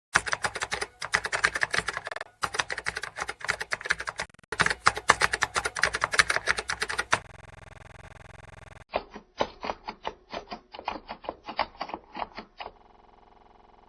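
Rapid typing: dense runs of key clicks for about seven seconds, with two brief breaks. Then comes a short gap with a faint steady hum, followed by a second, duller run of keystrokes lasting about four seconds.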